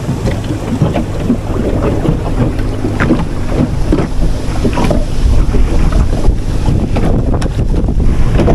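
Wind buffeting the microphone in a heavy low rumble, with small clicks and knocks of fishing line and gear being handled on the wooden deck of a small boat, and a faint steady low hum underneath.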